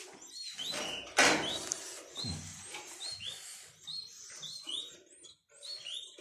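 Sparrow nestlings giving rapid, repeated high begging chirps as they are hand-fed, a sign that they are hungry. A brief louder burst of noise comes about a second in.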